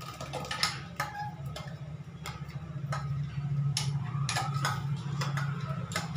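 A metal spoon clinking and tapping irregularly against steel cooking vessels as ground coconut paste is scraped into the pot, with a steady low hum underneath.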